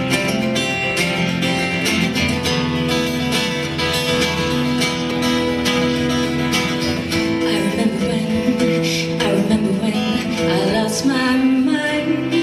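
Two acoustic guitars playing together live, picked and strummed, as the instrumental opening of a song.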